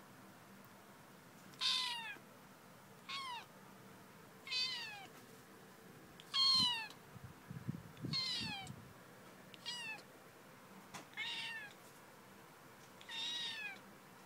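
Tabby kitten meowing repeatedly: eight short, high-pitched calls, each falling in pitch, about one every one and a half seconds.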